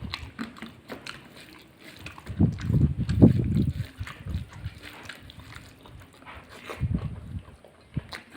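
Close-miked wet chewing and mouth sounds of someone eating rice and curry, with irregular smacks and small clicks. A louder stretch of chewing comes about two to four seconds in.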